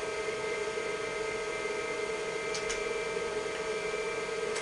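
IBM 5160 PC XT running: a steady hum and whine from its cooling fan and spinning hard drive, with a few faint clicks about two and a half seconds in and again near the end.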